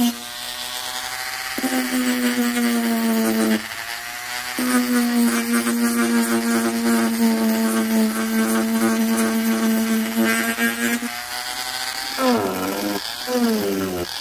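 Dremel rotary tool on a low speed setting, its small sanding drum sanding dried papier-mâché: a steady whine that weakens or drops out briefly a few times, then falls and rises again in pitch near the end.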